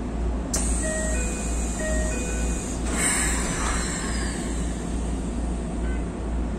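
Keikyu electric train standing at a station platform, heard from the driver's cab: a steady low hum from the train's onboard equipment. About a second in, a short chime of a few notes sounds, and a brief hiss follows about three seconds in.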